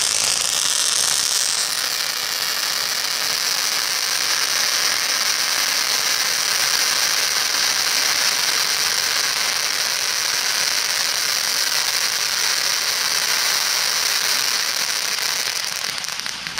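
Ground firework fountain spraying sparks, giving a steady, high-pitched rushing hiss that fades near the end as the fountain burns out.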